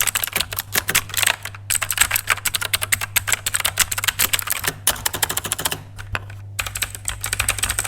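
Redgear Shadow Blade MK853 mechanical keyboard with clicky Outemu Blue switches being typed on fast, a dense stream of sharp key clicks broken by a few short pauses, over a steady low hum.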